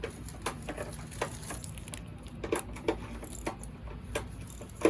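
Irregular light clicks and knocks, about a dozen, from hand tools and parts being handled during spark plug work, over a low steady hum.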